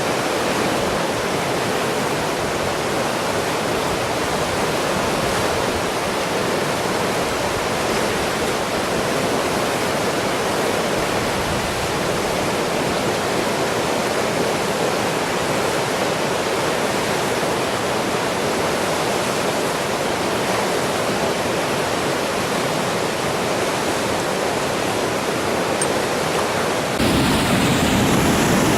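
Floodwater of the Irvine River rushing steadily through rapids and falls. About 27 s in it gets louder and deeper.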